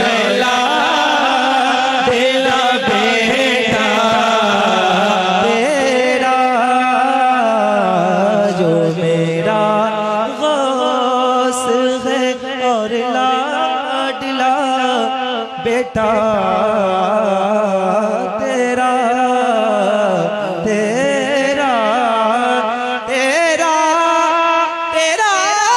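A man's solo voice singing a Sufi devotional song (manqabat) into a microphone, drawing out long held notes and melismatic lines with fast wavering ornaments.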